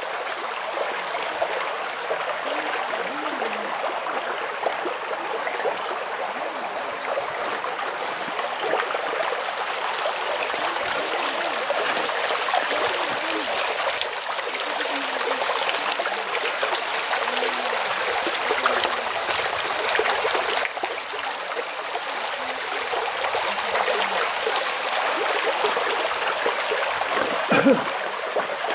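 Shallow creek running over a bed of pebbles and gravel: a steady rush of flowing water. A short thump near the end.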